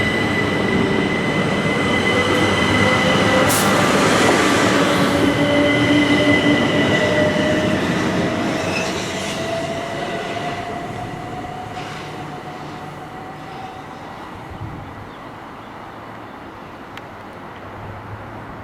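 Train passing through a station: a loud rumble of wheels on rails with a steady high whine and a tone that slowly rises in pitch, then fading away over the second half as the train moves off. A sharp click comes about three and a half seconds in.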